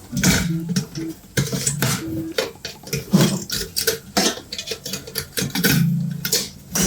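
Irregular clicks, taps and scrapes of a screwdriver and small metal parts as a rice cooker's magnet switch and coil are worked loose from their mounting.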